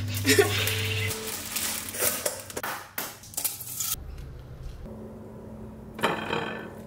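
Kitchen clatter: cutlery clicking and scraping on a plate for the first few seconds. After a quieter stretch, a spatula scrapes a fried egg out of a frying pan near the end.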